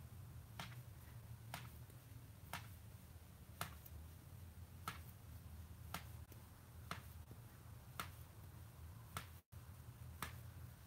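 Faint clicks of metal circular knitting needle tips as stitches are knitted, about one click a second at a slightly uneven pace, over a low steady room hum.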